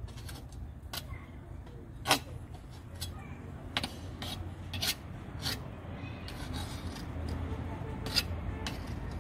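A knife blade scraping hardened banku (fermented corn dough) off the rim and sides of an aluminium cooking pot: irregular rasping scrapes with sharp clicks of steel on the metal, the loudest about two seconds in.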